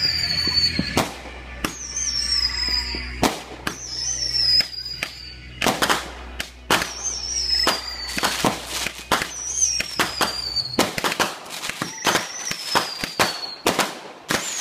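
Fireworks going off in a rapid string of sharp bangs and crackles, with a short high whistle falling in pitch every second or two.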